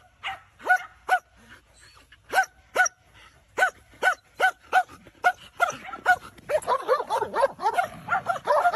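A collie-type dog barking through a hole in a wooden fence in short, high barks, about two a second. The barks come faster and closer together from about six seconds in.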